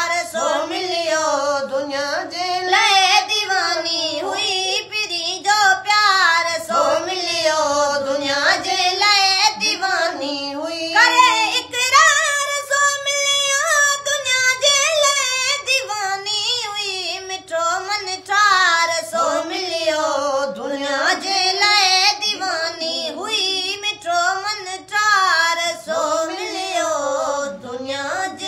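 A boy singing a Sindhi naat solo and unaccompanied, in a high voice with ornamented, wavering melodic runs. About twelve seconds in he holds one long steady note, then goes back into the ornamented phrases.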